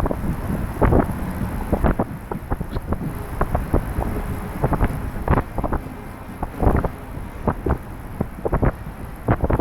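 Wind buffeting the microphone of a camera riding on a moving trike, in uneven gusts over a low steady rumble.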